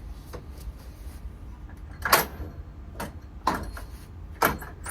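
Hospital bed foot-brake pedal being worked on its newly fitted brackets: three sharp mechanical clunks as the brake bar moves and latches, over a low rumble.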